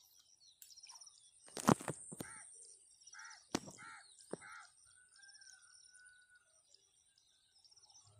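A crow cawing four times in quick succession, with small birds chirping. A sharp thump about a second and a half in is the loudest sound.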